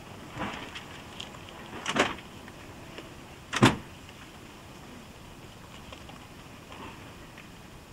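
Hinged slam doors of a British Rail slam-door electric train being banged shut: two sharp slams, about two seconds and three and a half seconds in, the second the loudest, with a lighter knock near the start. Under them runs a steady background of a tape recording.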